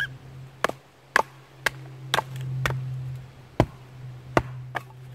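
A wooden baton striking the spine of a Hultafors OK4 bushcraft knife, driving the blade down through a knotty piece of dry maple. There are about nine sharp wooden knocks at uneven intervals, roughly one every half second.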